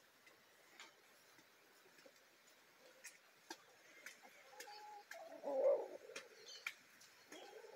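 Hens clucking softly, the loudest call a little past halfway, with scattered small clicks.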